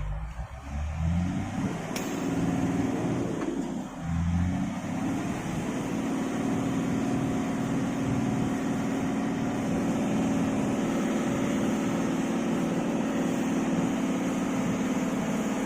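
Diesel engine of an IVECO heavy tractor-trailer running under load. Its revs shift during the first few seconds, then hold steady.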